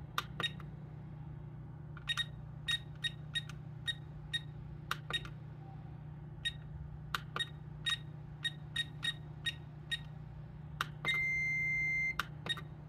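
ToolkitRC M6D LiPo charger's button beeper sounding a string of short beeps at irregular intervals as its scroll wheel is turned and pressed to step through the menu. Near the end comes a longer beep of about a second as the charge-start prompt comes up, then two more short beeps.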